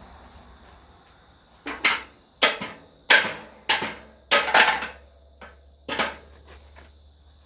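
Hammer blows on steel, about seven strikes roughly every half second to second, each ringing briefly. Driving out a steel pin.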